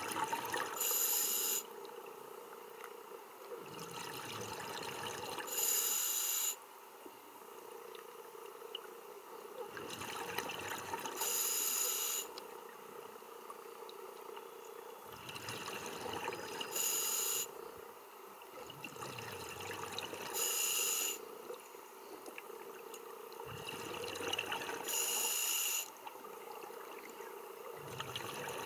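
Scuba diver breathing underwater through a regulator: a soft hiss on each inhale, then a loud burst of exhaust bubbles on each exhale, about every four to five seconds, six breaths in all.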